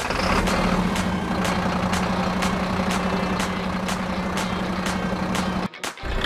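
Toy truck's engine sound: a steady hum with a regular click about twice a second, cutting off abruptly near the end.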